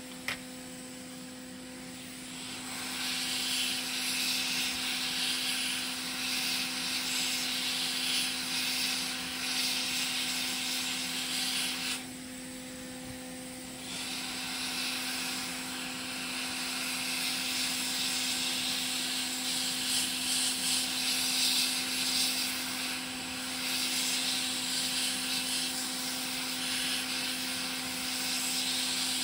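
Hot air rework station running: a steady fan hum under a rushing hiss of blown air, which comes in about two seconds in, fades for a couple of seconds near the middle, and returns, as hot air is played over a chip to desolder it. A single click right at the start.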